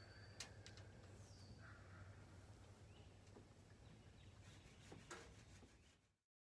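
Near silence: faint outdoor ambience with a low rumble and a few soft clicks, and a brief falling bird chirp about a second in.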